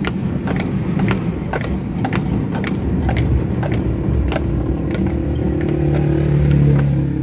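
Horse-drawn tram running on its rails: the draught horse's hooves clopping at a walk, about two strikes a second, over the rumble and rattle of the tram's wheels on the track. A low steady hum comes in about five seconds in.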